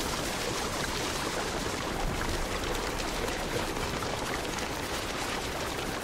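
Steady rushing of a mountain river, with a few faint sharp crackles from a campfire and the rustle of wings from a flock of birds flying over.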